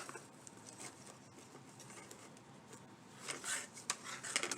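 Faint rustling and scraping of hands working small craft hearts along their string and through the holes. Louder short rustles come about three and a half and four and a half seconds in.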